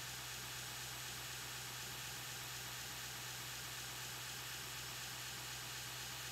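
Steady hiss with a low, even hum underneath and no grinding or other events.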